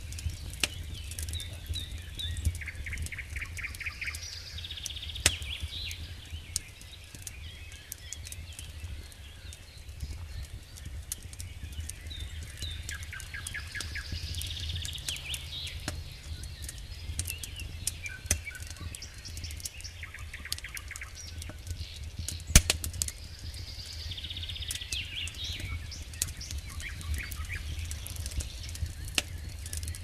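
Wood campfire crackling with frequent sharp pops, one much louder pop about two-thirds of the way through. A songbird sings trilled phrases in three bouts, and a steady low rumble runs underneath.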